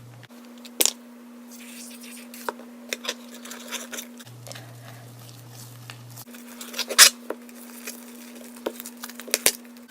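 Fluffy slime being mixed and worked by hand, giving irregular sticky crackles, tearing and squishing sounds, with a sharper snap about seven seconds in. A steady low hum runs underneath.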